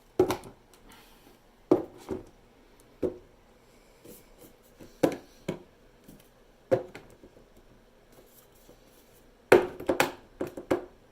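Sharp knocks and clatter of shelving poles and shelves being handled and pushed against the shelf holes, a few knocks a second or two apart and a busy cluster near the end. The poles won't seat in the holes.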